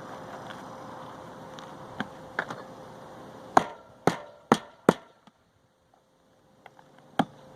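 Roofing hatchet driving nails through asphalt shingles: a few light taps, then four sharp hammer strikes about two a second, a pause, and two more strikes near the end.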